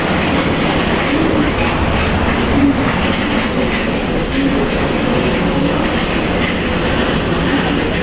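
Tomorrowland Transit Authority PeopleMover car running along its track, heard from on board: a steady rumble with a rhythmic clatter.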